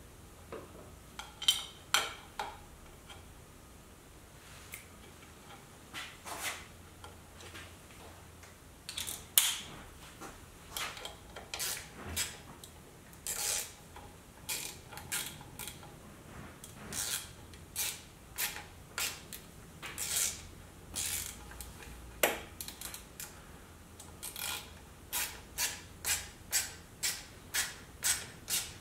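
Allen key turning the button-head screws that hold an Arlen Ness Big Sucker air cleaner filter to its backing plate: a series of light metallic clicks and ticks, scattered at first and settling into a steady run of about two a second near the end.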